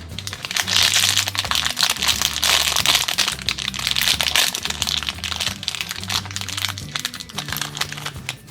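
Plastic or foil toy packaging being crinkled and torn open, a loud dense crackling that starts about half a second in and runs until near the end, over background music.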